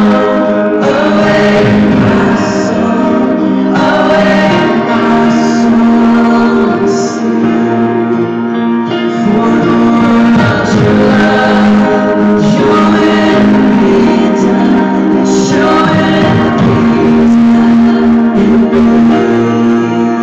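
Live Christian worship band playing loud through the arena's sound system, with a woman singing lead, heard from the seats.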